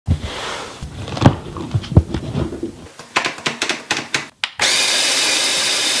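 Cardboard box handled with a few dull thumps, then a quick run of clicks. From about four and a half seconds in, an OXO BREW conical burr coffee grinder runs, its motor and burrs making a steady, loud grinding noise.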